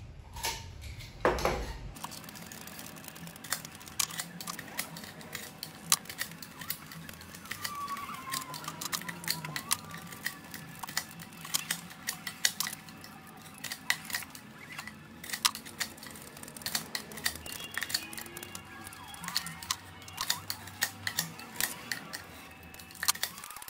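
Utility knife blade scraping and peeling the outer skin off the end of a bamboo tube, an irregular run of sharp scratchy clicks, exposing the raw fibres underneath for the joint.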